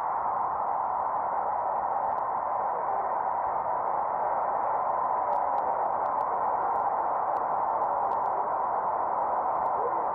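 Stadium crowd cheering a long touchdown run, heard through an old radio broadcast: a steady, loud roar of voices with the thin sound of the radio, no deep bass and no high end.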